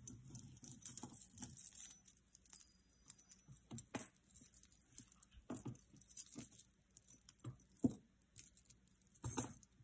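Metal jewelry jingling and clinking as a tangle of chains, wire and a metal earring is handled and pulled apart, with scattered small clicks and light rattles.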